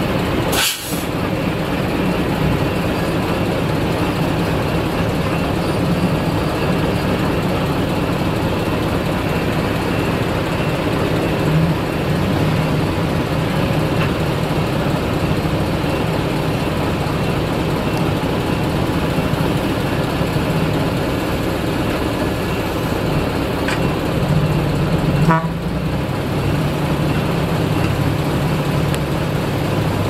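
Heavy diesel engines of earthmoving machinery running steadily under load, with a short break under a second in and another near the end.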